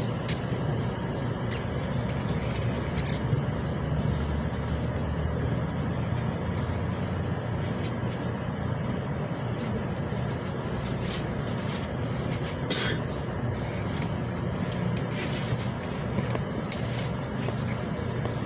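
LiAZ 6213.21 articulated bus's MAN D0836 six-cylinder diesel idling steadily while the bus stands in traffic, heard inside the passenger cabin. A few small rattles and clicks, with one sharper click about 13 seconds in.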